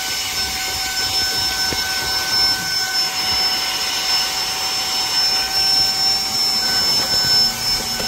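Saker 3-in-1 cordless brushless handheld vacuum running steadily, a constant motor whine over rushing air, as its narrow nozzle sucks dust from a car's gear-shift console.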